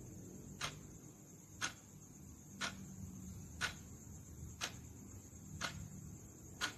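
Timer ticking steadily, one tick each second, over a faint steady high hiss.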